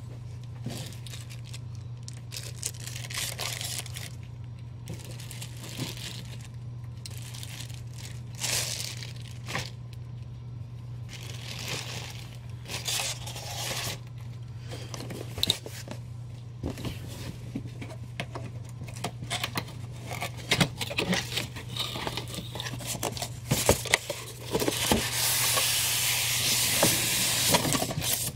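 Packaging being handled and opened: irregular crinkling, tearing and scraping of plastic wrap and cardboard, then about four seconds of steady rubbing hiss near the end as a styrofoam insert is slid out of its box. A low steady hum runs underneath.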